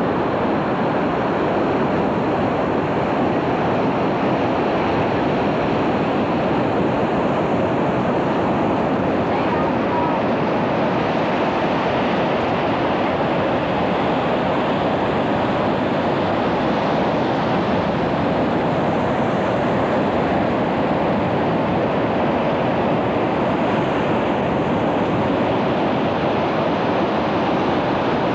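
Ocean surf breaking on a beach, a steady, unbroken rush of noise.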